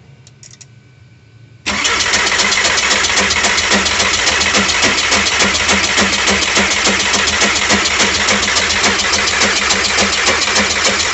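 A TDI diesel engine being cranked over by its starter motor: a steady, evenly pulsing churn that starts suddenly about a second and a half in and never catches. The engine does not fire because no diesel is reaching the freshly rebuilt injection pump, which the mechanic puts down most likely to the fuel shut-off valve.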